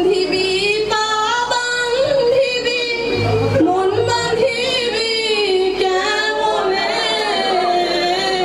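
A woman singing solo into a handheld microphone, holding long notes that waver in pitch.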